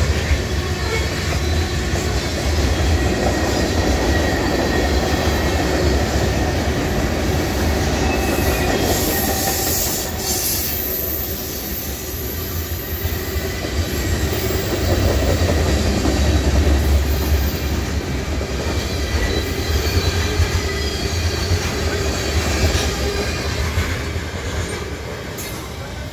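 Freight cars of a long mixed freight train rolling past close by, a steady heavy rumble of steel wheels on rail with a thin high wheel squeal over it. The sound eases off over the last few seconds as the end of the train moves away.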